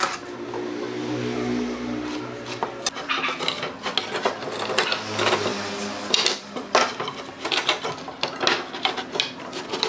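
Pine boards being shifted and knocked together on a wooden workbench while a bar clamp is fitted across them: a run of sharp wooden knocks and clicks from about three seconds in.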